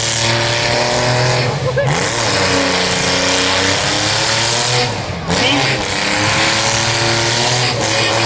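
Demolition derby cars' engines revving hard under a loud, steady din of engine and tyre noise, the engine pitch dropping and climbing again about two seconds in and once more about five seconds in.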